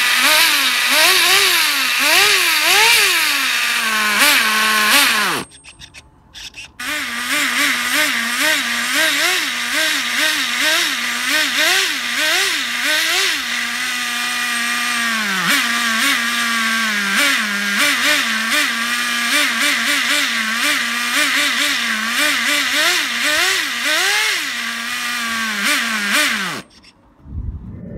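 Small two-stroke nitro glow engine of an Acme Conda RC car running on the bench, revved in quick throttle blips that rise and fall over and over, settling briefly to idle between them. It is set rich at the start of tuning. It breaks off for about a second and a half after five seconds, comes back, and stops near the end.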